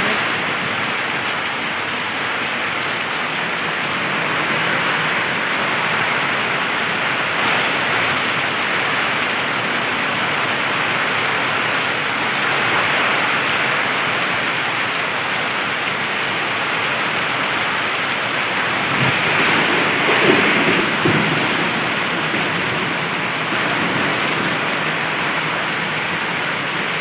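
Heavy rain pouring down steadily in a storm, a dense even hiss of rain on the ground and surfaces.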